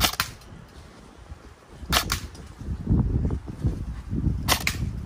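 Airsoft replica AR-15 firing plastic pellets: three sharp snaps about two and a half seconds apart, each with a quick second click right after it.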